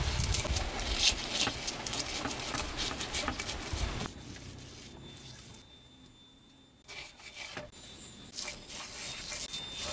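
Wooden pestle crushing and grinding peanuts, chillies and shallots against a stone mortar, in quick crunching, scraping strokes. The grinding drops away for a couple of seconds after the midpoint, then scattered scraping resumes.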